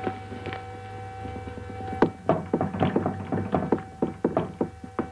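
A quick, irregular run of sharp knocks and taps, about three or four a second, starting about two seconds in, after a couple of single knocks at the start. A steady two-note electronic hum sits underneath throughout.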